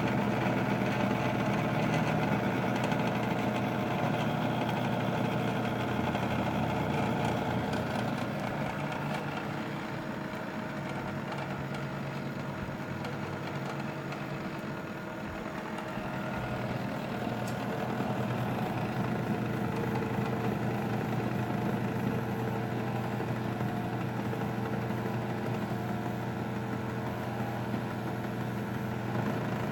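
Stepper motors of a DIY four-axis CNC hot-wire foam cutter humming steadily as the machine runs a cut, over the constant blowing of fans. The hum is a little quieter around the middle.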